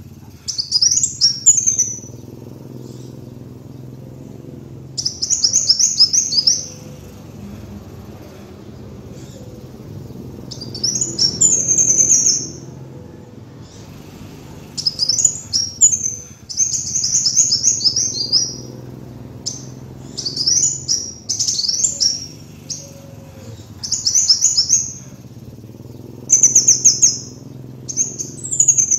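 Kolibri wulung sunbird singing: about ten quick phrases of rapid, high, sharp twittering notes, each lasting a second or two with short pauses between, over a faint steady low hum.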